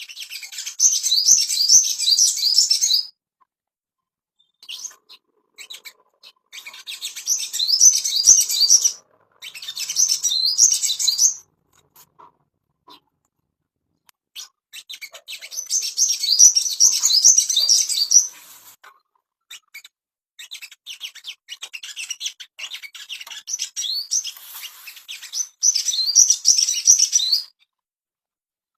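Crimson sunbird (sogon) singing: bursts of fast, high-pitched twittering a few seconds long, separated by short pauses, the last phrase growing louder near the end.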